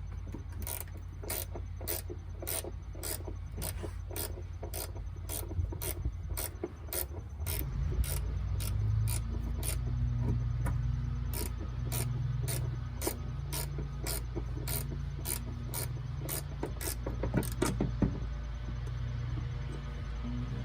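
Ratchet wrench clicking steadily, about three clicks a second, as 12 mm door hinge bolts are backed out. A low hum grows louder about a third of the way in.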